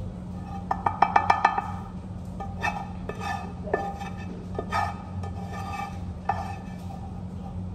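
Kitchen clatter: a quick run of sharp clicks about a second in, then several separate ringing clinks of kitchenware, over a steady low hum.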